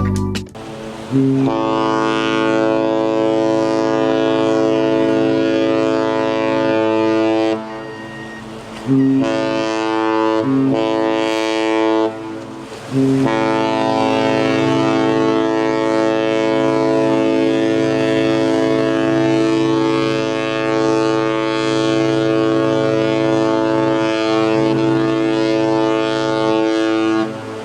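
Cruise ship's horn sounding three steady blasts: one of about six seconds, a shorter one of about three seconds, then a long blast of about fourteen seconds.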